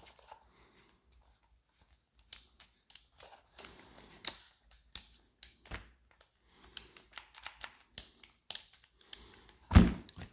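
Light plastic clicks and knocks as the impact driver is handled and its rubber nose cover is fitted during reassembly, with a louder thump near the end as the tool is set down on the rubber bench mat.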